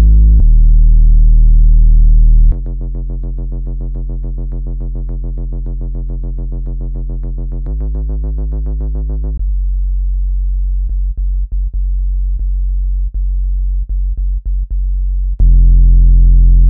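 Synthesized low-pitched tones played to vibrate a laptop speaker and push spilled water out. The tones step abruptly between several steady pitches. It opens with a loud deep tone, a few seconds in turns to a quieter, fast-pulsing buzz, then a plain low hum that cuts out briefly several times, and near the end jumps back to the loud deep tone.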